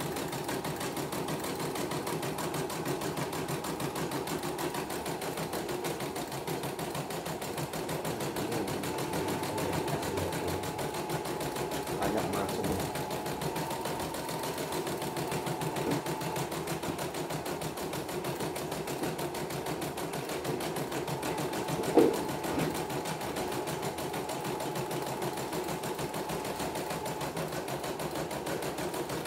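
CNY computerized embroidery machine stitching a test design after servicing: a fast, steady needle rhythm at an even level. A single sharp click comes about three quarters of the way through.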